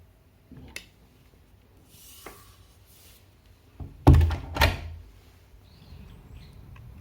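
Thumps and knocks from a cat at play, pouncing on the floor: a few light knocks and a brief rustle, then two heavy thumps about half a second apart a little past the middle.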